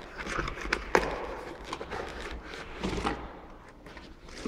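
Cardboard box and insert rustling and scraping as a small aquarium air pump is pulled out of its packaging, with a sharp knock about a second in and a few lighter taps.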